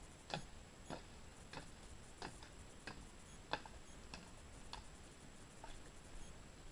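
Horse's hooves striking hard ground at a walk: evenly spaced clops, about three every two seconds, fading after about five seconds.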